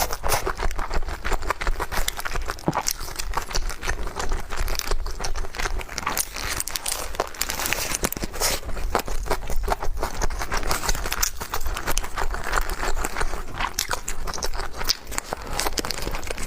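Close-miked eating sounds: chewing and mouth noises in a dense, continuous run of small clicks and crackles.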